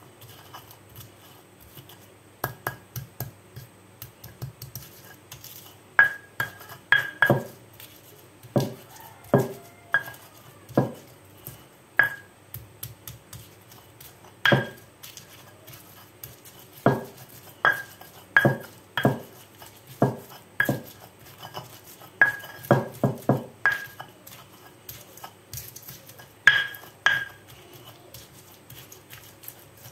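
Stone pestle (ulekan) striking and grinding in a stone mortar (cobek), coarsely crushing chillies, garlic and shallots for sambal: irregular sharp stone-on-stone knocks with a short ring, one or two a second. Soft at first, louder from about six seconds in.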